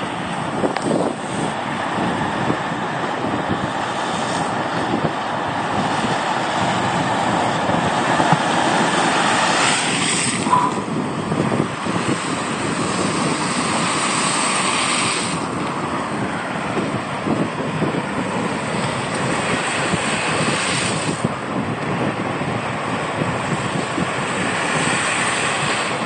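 Lake Michigan waves surging and crashing against a concrete breakwater in a continuous roar, with several louder crashes of splashing spray, one about halfway through. Strong wind buffets the microphone.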